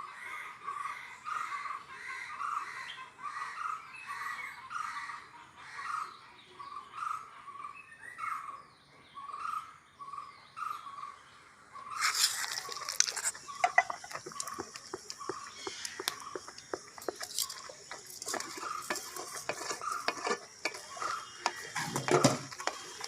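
A repeated high chirping call about twice a second, then, suddenly about halfway through, a pan sizzling loudly with a spoon stirring and clinking against it.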